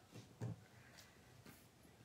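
Near silence: room tone with a few faint, short clicks, the clearest about half a second in.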